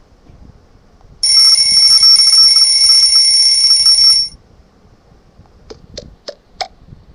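MIUI 12 phone ringtone preview: a high, bright, bell-like ringing tone that starts about a second in, holds steady for about three seconds and cuts off suddenly. Four short clicks follow near the end.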